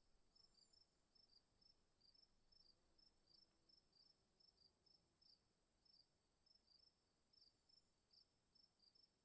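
Faint insect chirping, a few short chirps a second, over a steady high-pitched insect drone.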